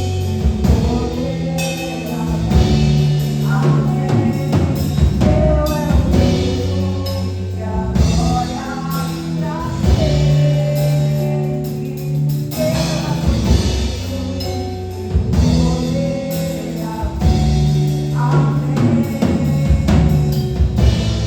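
Gospel worship music: singing over a band with a drum kit and sustained low notes underneath.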